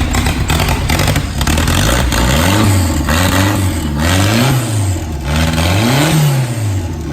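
Turbocharged Nissan SR20 four-cylinder running loud and raw through an open turbo outlet with no downpipe, its revs swelling and dropping several times. It will not settle to an idle on its own.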